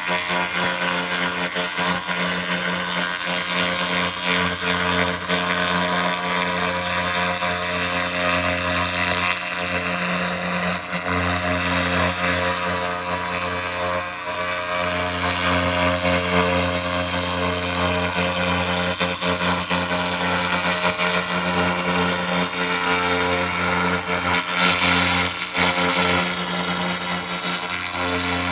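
SFX 2000 laser rust remover ablating rust from metal: a steady hiss with humming tones underneath, brightening briefly about 25 seconds in.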